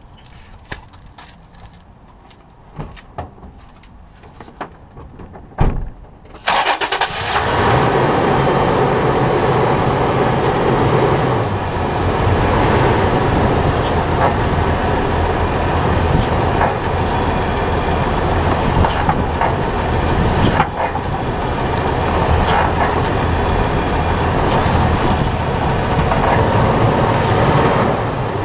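Front suspension of a 2011 Toyota 4Runner heard from underneath the truck: light knocks and clicks, then from about six seconds in a loud, steady rush of road and wind noise as it drives, with an occasional knock. This is the front-end noise the owner suspected was a bad lower control arm bushing; a new lower control arm with a new bushing and lower ball joint cured it.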